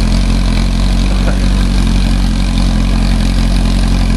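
VW-powered rail buggy's engine running at a steady, unchanging speed, loud and close.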